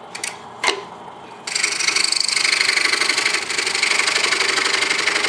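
A few light clicks, then about a second and a half in a DeWalt scroll saw starts cutting, its blade stroking rapidly through a stack of wood pieces.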